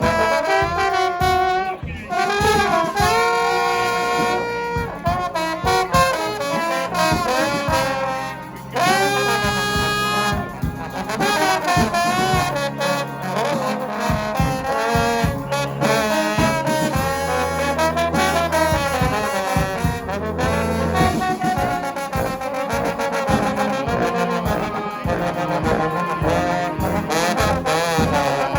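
Brass band playing live: trumpets and trombones over a steady drum beat, with long held chords about three and nine seconds in.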